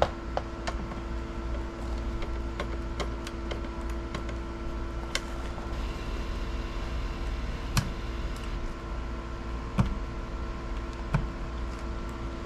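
Light clicks and taps of electrical wires and a hand tool being worked in a metal inlet box, with a few sharper clicks in the second half, over a steady low hum.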